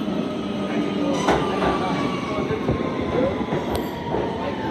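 R160 Siemens subway train pulling into the station and braking, its traction motors whining in a tone that slowly falls over a steady rumble of wheels on rail, with a few sharp clacks over rail joints.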